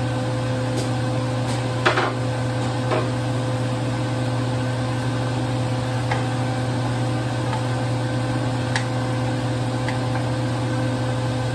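Kitchen range-hood exhaust fan running with a steady hum and a tone held throughout. A few light knocks of wooden spatulas against the wok come through it.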